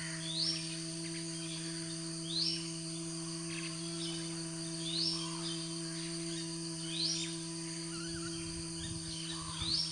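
A bird gives a short rising call about every two seconds, five times, over a steady low humming drone.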